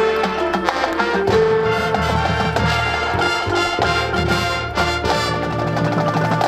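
High school marching band playing its field show: brass with low bass notes entering about a second in, over a steady pattern of quick repeated notes.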